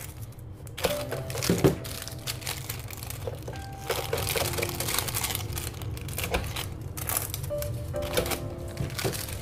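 Clear plastic shrink-wrap bags crinkling and rustling as soap bars are handled and pressed in a hand heat sealer, over soft background music.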